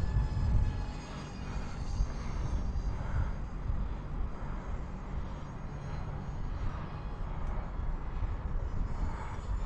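Twin 30 mm electric ducted fans of a UMX A-10 Thunderbolt II RC jet whining in flight, a thin high whine that swells and fades, over a steady low rumble.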